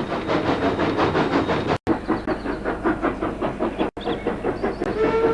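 Steam locomotive labouring up a steep grade, its exhaust beating in quick, regular chuffs as the hill slows it. The sound cuts out for an instant twice, and a steam whistle starts to sound near the end.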